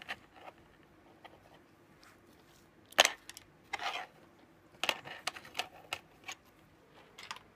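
Clicks and light rattles of cables and a small circuit board being handled on a desk. The sharpest click comes about three seconds in, followed by a few short clusters of lighter clicks.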